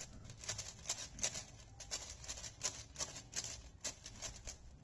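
Plastic clicking of a 6x6 speed cube's layers being turned by hand, an uneven run of several quick clacks a second.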